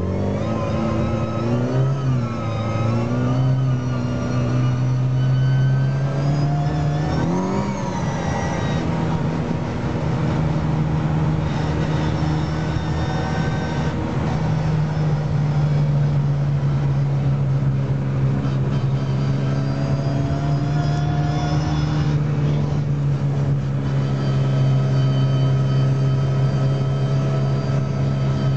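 Vehicle engine heard from inside the cabin while driving. Its note rises and falls with the revs through the first several seconds, then settles into a steady run.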